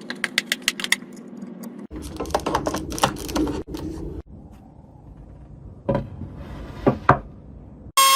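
A string of short edited snippets of workshop taps and knocks: a quick run of light taps, about six a second, in the first second, then scattered knocks, with two sharper knocks about a second apart near the end.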